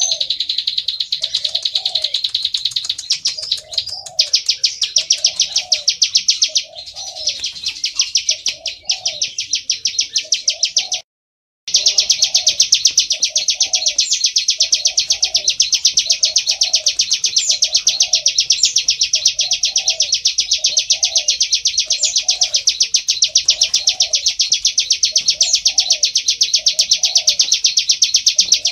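Plain prinia (prenjak sawah) song: a loud, rapid, unbroken trill of fast-repeated high notes. A softer, lower note repeats about once a second underneath. The sound cuts out completely for about half a second around the middle.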